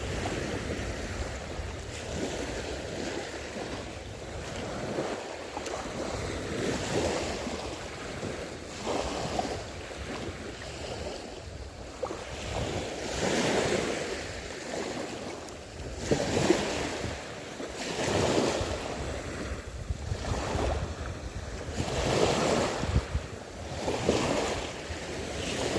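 Sea waves washing in and out in repeated swells, with wind buffeting the microphone.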